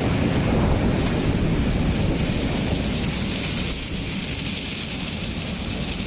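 Wood crusher (wood chipper) running steadily with a dense rumbling noise as it throws out wood chips onto the pile; it gets a little quieter a little over halfway through.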